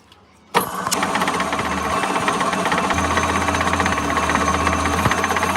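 A machine starts running about half a second in, with a loud, steady, rapid rattling drone.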